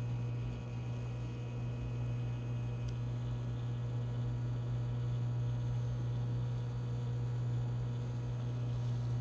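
Microwave oven running, a steady electrical hum.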